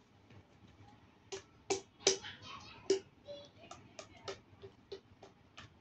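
Hands tapping and patting the husk of a whole king coconut: a scattering of short, quiet knocks at irregular intervals, some with a brief pitched ring.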